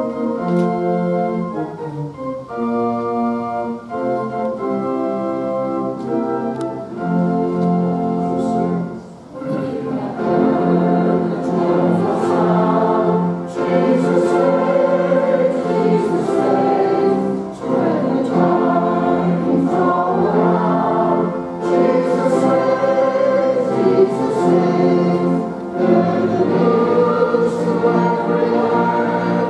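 An organ plays a hymn introduction in held chords. About ten seconds in, the congregation joins in singing the hymn, with the organ accompanying.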